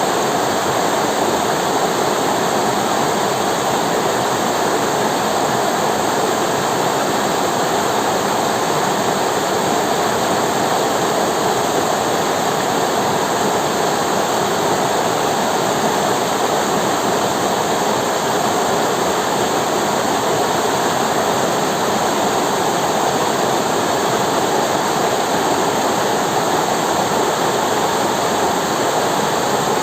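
River water flowing and rushing over rocks, a loud, steady roar with no breaks.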